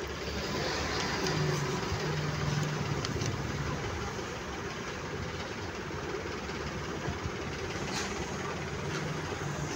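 Steady engine-like rumble with a low hum, a little louder from about one to three seconds in, and a few faint clicks.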